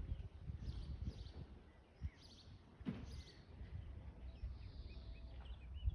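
Birds chirping now and then, short high calls over a faint low rumble of outdoor background noise, with a soft knock about three seconds in.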